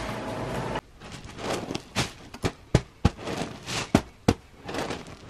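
A hand pressing and patting a hard-filled pillow, the filling shifting with a run of sharp clicks and crunchy rustles. The pillow is stiff, "a bag of rocks".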